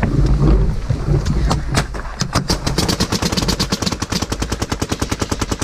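A paintball marker firing a steady, rapid stream of shots, about ten a second, starting about two seconds in. Before that there is low rumbling movement noise.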